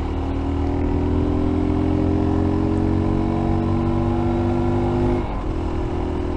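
F.B Mondial Pagani 300 motorcycle engine running under way, its pitch rising slowly as it picks up speed, then dropping suddenly about five seconds in and holding steady.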